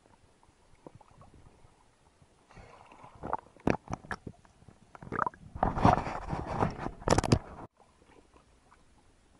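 Sea water splashing and gurgling around the camera as it moves through the surface, in a run of irregular splashes starting about two and a half seconds in and cutting off suddenly near the end.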